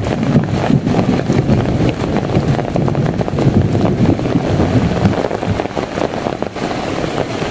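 Heavy rain falling as a dense patter of drops, with wind buffeting the microphone into a low, uneven rumble.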